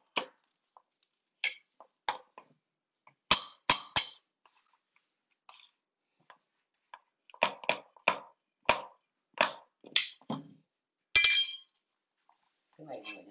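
Irregular sharp knocks and ringing clinks of hard tools and flooring pieces being handled on a bathroom floor: a few strikes about three seconds in, a run of about eight knocks in the middle, and a ringing clink near the end.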